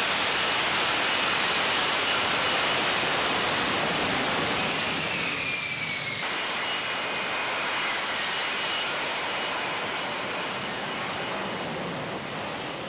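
F-35B jet engine running loud in a hover and vertical landing: a dense rush of jet noise with a high whine that slides down in pitch twice. The noise eases off gradually near the end.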